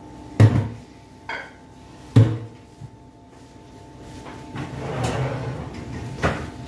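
Kitchen cabinet sounds: two sharp knocks with a smaller one between them, then a longer sliding rattle as a pull-out wire bottle basket is worked and a bottle handled, and another knock near the end.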